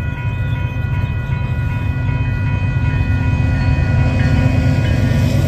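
Freight train's diesel locomotives approaching a grade crossing, the low rumble growing louder, with the crossing's warning bell ringing steadily over it.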